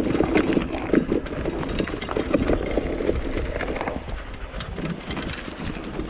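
Electric mountain bike jolting over rough, bumpy grassland: rapid irregular clatters and knocks from the bike, tyres over dry grass, with a low wind rumble on the microphone.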